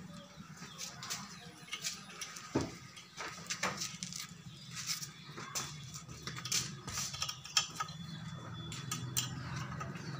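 Irregular small metallic clicks and scrapes of a spanner and fingers working the screws and clips that hold power transistors to a power amplifier's metal heatsink.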